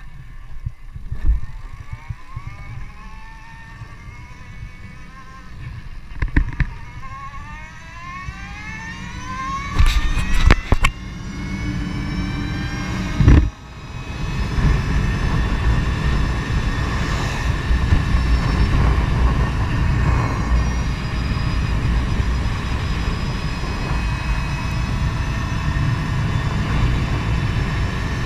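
2016 Energica Eva electric motorcycle pulling away, its electric motor whining and rising steadily in pitch as the bike gathers speed, with a few sharp knocks. From about 14 s on, wind rushing over the microphone dominates, with the motor's whine holding a steady pitch at cruising speed.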